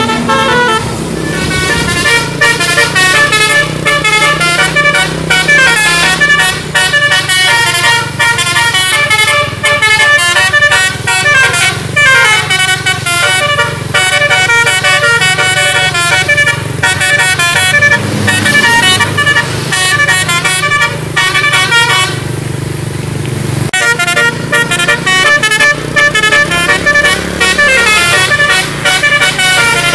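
Indonesian 'telolet basuri' multi-tone bus horn playing a fast melody of stepping notes, with a bus engine running underneath. The melody breaks off for a couple of seconds past the middle, then starts again.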